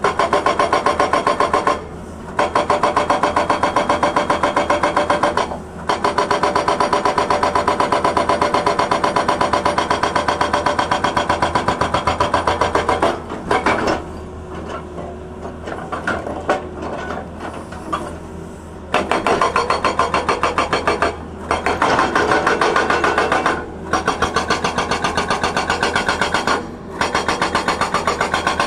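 Hydraulic rock breaker on a Tata Hitachi excavator hammering rock in long runs of rapid, evenly spaced blows, with short pauses between runs. About 13 seconds in the hammering stops for some six seconds, leaving the excavator's diesel engine running, then starts again.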